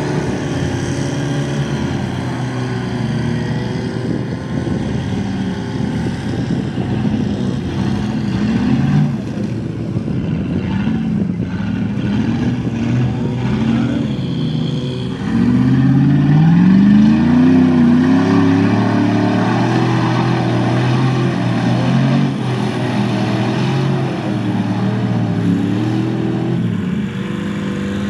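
Two-wheel-drive Chevrolet Silverado mud truck's engine revving up and down as the truck churns through deep mud, the revs climbing sharply and getting louder about fifteen seconds in.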